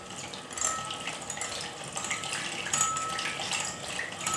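Raw eggs being whisked by hand in a plastic measuring jug: a wet, churning liquid sound with light clicks of the whisk against the jug.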